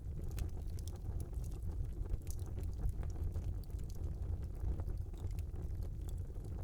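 Wood fire burning in a small fireplace: a steady low rumble of the flames with frequent small crackles and pops scattered throughout.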